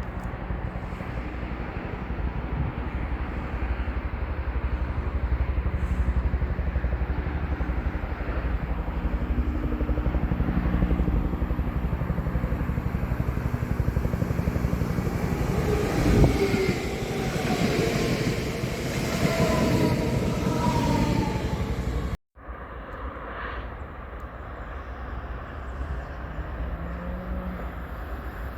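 Train passing on the line: a steady rumble of wheels on rail, with a few short whining tones in the middle. It breaks off suddenly about 22 seconds in and picks up again as a quieter train rumble.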